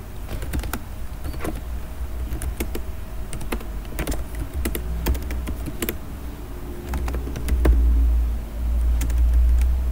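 Typing on a computer keyboard: irregular key clicks, some in quick runs. Beneath them is a low rumble that swells twice in the second half.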